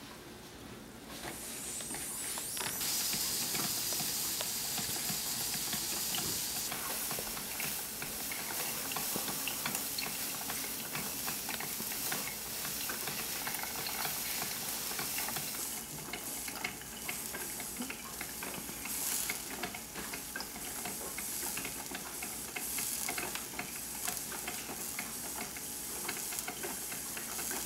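Hamilton Beach drip coffee maker brewing: a steady hiss with scattered small ticks, swelling in over the first couple of seconds.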